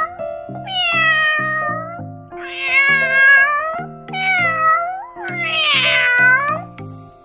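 Domestic cat meowing four times, long drawn-out meows, over background music with a repeating beat.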